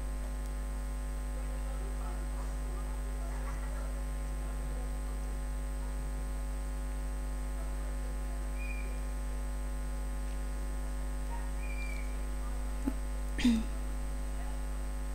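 Steady low electrical mains hum picked up by the recording, with a brief click and a short sound near the end.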